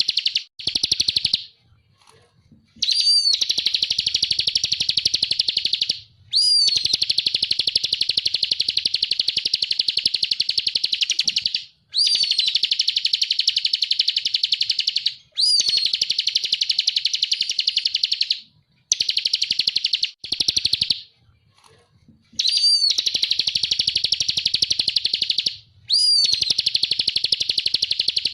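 Bar-winged prinia (ciblek kristal) singing in long, very fast trills of about three seconds each, repeated after short pauses. Each trill opens with a brief rising-then-falling note.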